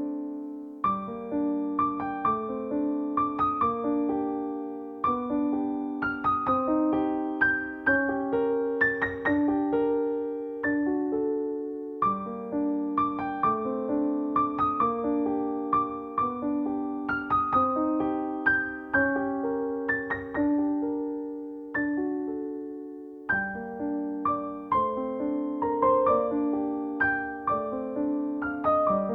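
Background piano music: a steady, gentle pattern of struck notes.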